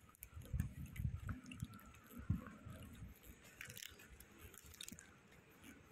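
A person chewing and crunching caramelized almonds close to the microphone, as a run of irregular low, soft crunches.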